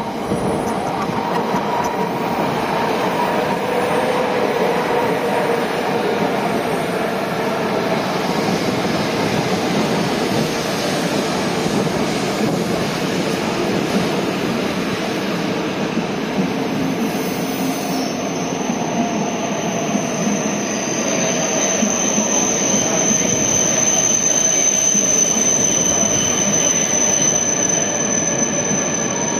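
An E5 series Shinkansen coupled to an E6 series pulling slowly into the platform: continuous running and motor noise whose pitches slowly fall as the train decelerates. A steady high squeal, typical of brakes near the stop, sets in about two-thirds of the way through.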